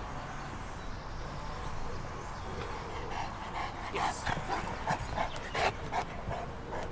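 St Bernard on a lead, with sounds of a dog moving about and breathing. About halfway through a quick run of short scuffing strokes begins, about three a second, as the dog lunges and swings about on the sand.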